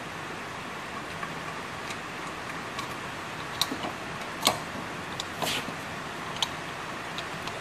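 Short metal clicks and clinks from a Honda mower's blade disc and its swing blades being handled and turned by hand, about half a dozen in the second half, the loudest about four and a half seconds in. A steady hiss of rain lies under them.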